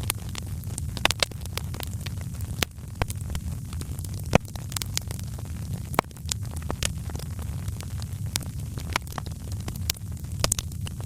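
Fireplace fire crackling, with irregular sharp pops (the loudest a little over four seconds in) over a steady low rumble.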